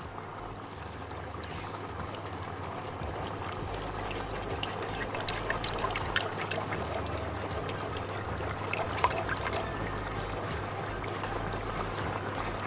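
Silicone whisk beating milk into a flour-and-ghee roux for béchamel in a metal pot: a steady wet sloshing, with occasional light clicks of the whisk against the pot.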